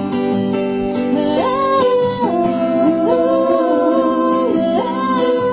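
Sung music: women's voices holding long, wordless notes in harmony, moving up and down together, over guitar accompaniment.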